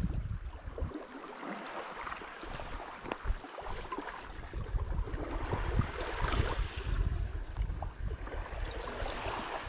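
Wind buffeting the microphone in uneven gusts, over a rough outdoor hiss with scattered small clicks.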